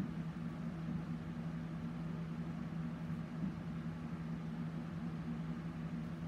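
Steady low hum with a light hiss underneath, holding the same throughout.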